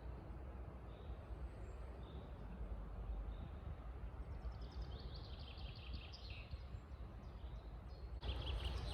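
Songbirds singing in a forest: a soft call repeated about once a second, then a quick trill of falling notes about halfway through, over a low steady rumble. Near the end the sound suddenly gets louder with more bird notes.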